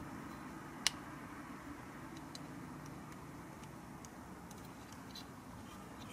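A sharp plastic click about a second in, then a few faint ticks: the parts of a Transformers Titans Return Misfire action figure being handled and snapped into place during its conversion to plane mode.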